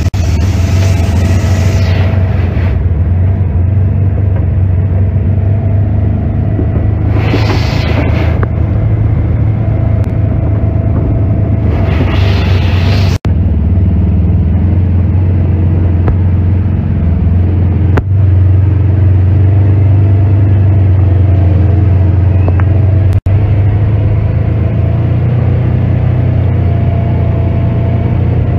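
Side-by-side UTV engine running steadily under way on the trail, heard from inside the machine as a deep drone. Two short bursts of hiss come about 7 and 12 seconds in, and the sound breaks off for an instant three times.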